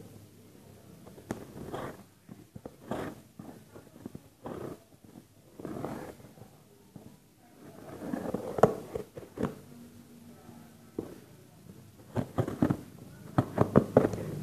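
Irregular rustling and scraping with scattered sharp clicks and knocks, from things being handled close to the microphone; a quick run of clicks comes near the end.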